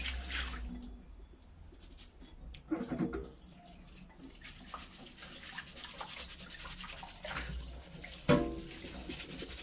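Water sloshing and splashing as rice is rinsed in a bowl and the rinse water is poured off, with a short voice-like sound about three seconds in and again near the end.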